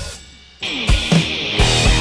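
Rock music with drums and electric guitar at a steady beat. The music breaks off for about half a second at the start and then comes back in.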